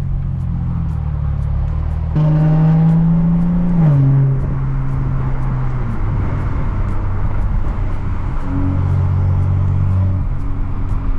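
Exhaust of a BMW 335i's turbocharged inline-six, run with a catless downpipe and the rear muffler deleted (essentially a straight pipe with only a resonator), heard while the car is driven. The note steps up under throttle about two seconds in and drops in pitch near four seconds, as at a gear change. It swells again near the end, with a low drone under it at cruise.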